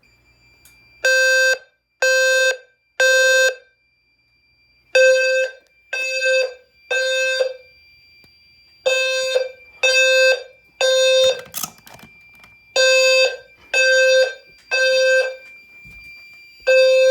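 Low-frequency fire alarm sounder sounding the temporal-3 evacuation pattern: three half-second low, buzzy beeps, then a pause, repeating four times with a fifth group starting near the end. A faint steady high-pitched tone runs underneath.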